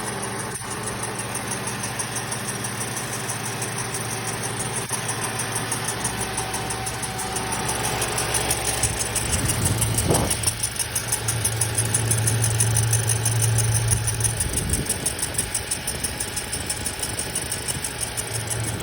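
2007 Lexus IS250's 2.5-litre V6 direct-injection engine idling, a steady hum with a fast, even ticking over it, growing louder around the middle. The owner first noticed this noise after replacing the alternator and is unsure whether it is a fault or normal.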